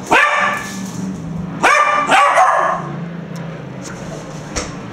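Four-month-old Irish Terrier puppy barking: a sharp bark at the start, then two more close together around two seconds in.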